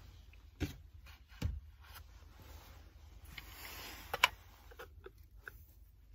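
Small knocks and clicks as a stainless steel travel mug and its lid are handled, the loudest a sharp click about four seconds in as the lid is lifted off the mug.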